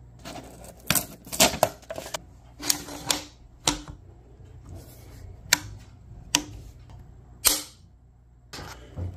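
Remington 700 ADL bolt-action rifle being worked by hand: about a dozen sharp metallic clicks and clacks from its action, safety and trigger, spaced irregularly, several with a brief metallic ring.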